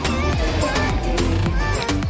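Background music with a steady beat and a sung or melodic line over it.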